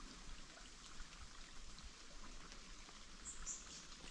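Faint trickle of a small forest creek, an even soft hiss with scattered tiny ticks.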